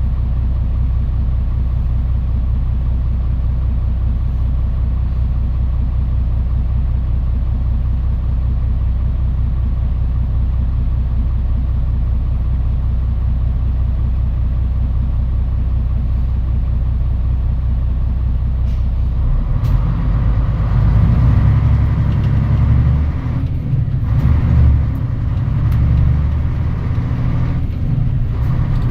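Mitsubishi Fuso Aerostar city bus engine heard from inside the bus, idling steadily with a low drone. About 19 seconds in it gets louder as the bus pulls away and accelerates, with a few brief breaks in the engine note like gear changes.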